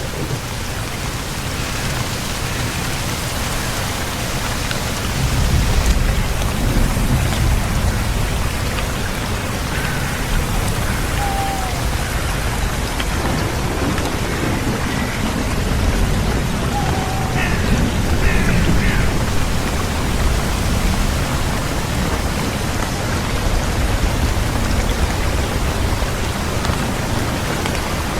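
Steady rain falling on foliage, with low rolling thunder that swells twice. A few faint short chirps sound in the middle.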